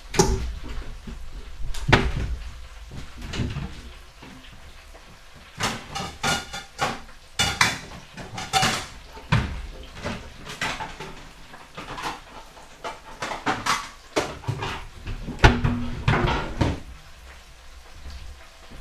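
Irregular kitchen clatter: a run of knocks and clinks from dishes and cupboard doors, spaced unevenly throughout.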